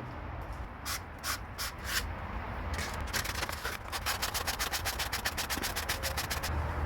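Sanding surface rust off a Honda Element's brake caliper piston by hand: a few slow scratchy strokes, then quick back-and-forth strokes about five a second that stop shortly before the end.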